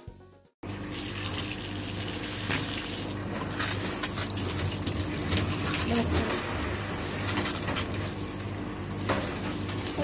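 Water running steadily from a handheld shower head and splashing over a small child's hands at a bathtub. It starts about half a second in, as background music cuts off.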